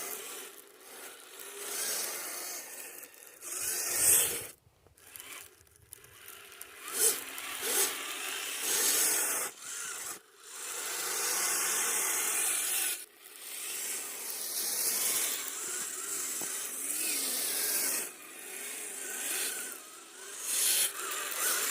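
RC rock crawlers driving through fresh snow: the small electric drive motors and gears whine while the tyres rasp and crunch through the powder, starting and stopping in spurts of a few seconds.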